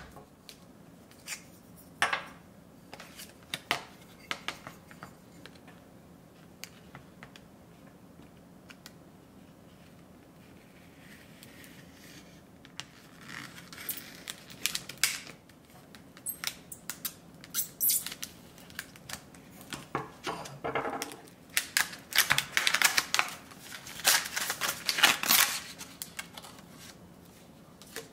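Clear plastic blister pack being handled and cut open with a small kiridashi knife: scattered plastic clicks and taps, then, from about halfway in, stretches of crackling, scraping plastic as the blade works through it.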